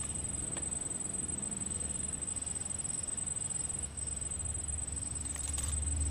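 A steady, high-pitched insect trill over a low, steady rumble, with a few faint clicks about five seconds in.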